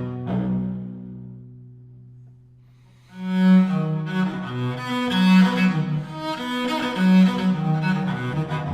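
Cello concerto music: a bowed cello phrase with accompanying strings dies away over the first few seconds, then the cello comes back in loudly about three seconds in with sustained notes.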